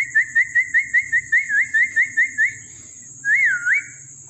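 Whistling: a quick run of about a dozen short rising notes, then one longer whistle that dips and rises again.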